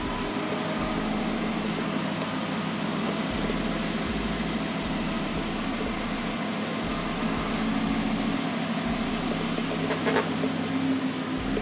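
Lamborghini engine running steadily at low revs.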